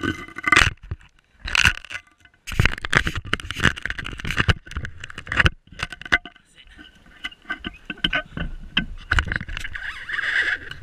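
Pedal go-kart clattering and scraping as it rolls over asphalt, in irregular bursts of knocks with short pauses between.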